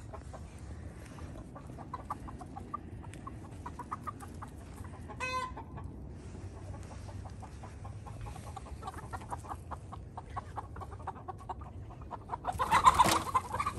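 Chickens clucking, with a short pitched squawk about five seconds in and a sudden louder burst of squawking near the end as a cat rushes toward them.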